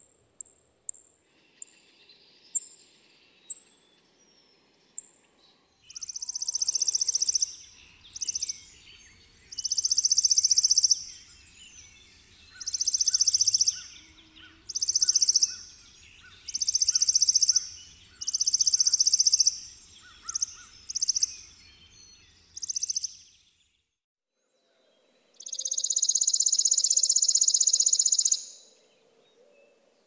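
Chipping sparrow calling and singing: a few high single chip notes, spaced farther apart as they go, then a run of dry, rapid trills on one pitch, each about a second long and coming every couple of seconds. After a brief silence, one longer trill of about three seconds.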